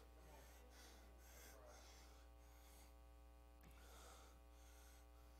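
Near silence: room tone with a faint steady electrical hum.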